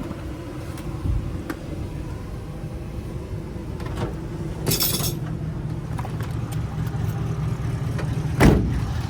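A steady low rumble of a running vehicle engine. A short hiss comes about five seconds in, and a single loud thump near the end.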